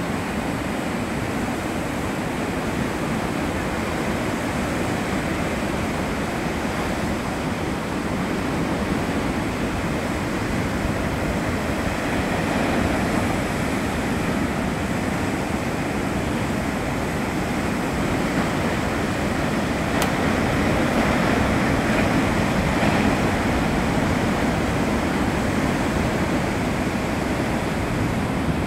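Heavy surf breaking along a beach: a steady roar of waves that swells a little louder about two-thirds of the way through.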